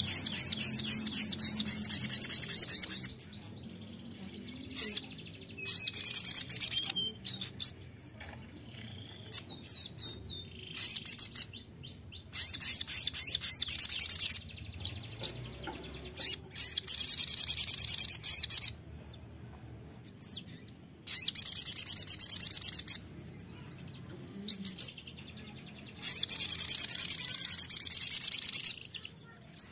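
A sogon sunbird singing: repeated bouts of very fast, high-pitched trilling, each two to three seconds long, coming every few seconds, with softer scattered chips in between.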